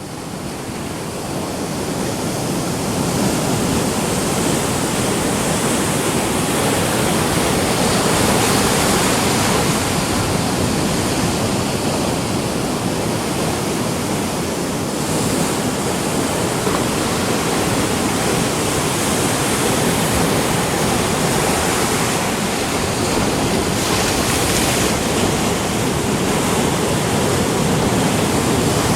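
Ocean surf: a continuous wash of breaking waves that fades in over the first few seconds and then holds steady, with a few brighter, hissier swells as waves break and wash in.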